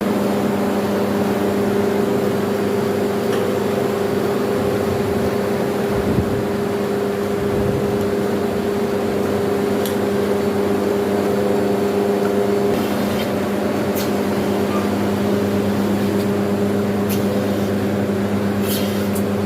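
A motor running with a steady, constant hum, with a few sharp clicks and knocks scattered through it.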